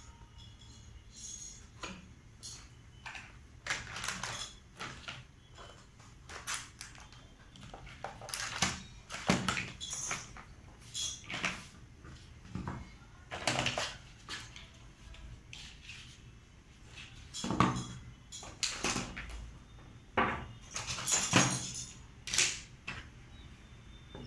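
Plastic toy racetrack pieces being taken out of a cardboard box and set down, with irregular clacks, knocks and rustling.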